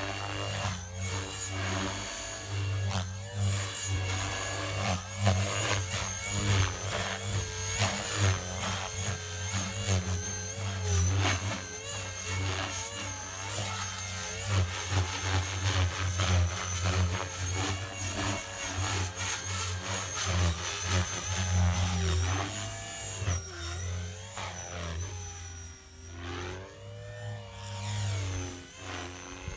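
Blade 360 CFX electric RC helicopter in flight: a high motor and gear whine with rotor noise whose pitch rises and falls again and again as it manoeuvres, with wide swoops near the end.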